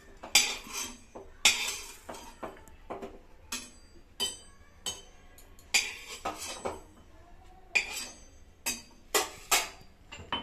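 Metal mortar and pestle (hamandista) crushing dry-roasted black peppercorns and green chillies: irregular sharp metallic strikes, about a dozen, some much louder than others.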